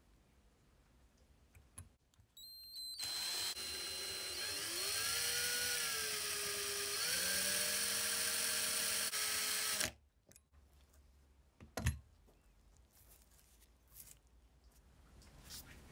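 Small electric drill spinning a thin bit into the rusted rivet head on an old lighter's hinged lever, drilling it out; the motor whine starts about two and a half seconds in, dips and rises in pitch under load, and stops abruptly after about seven seconds. A single sharp knock follows about two seconds later.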